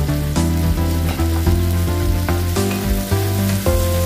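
Onions and diced tomato sizzling in a frying pan, with a wooden spoon scraping the pan as it stirs. Background music with a steady bass line plays over it.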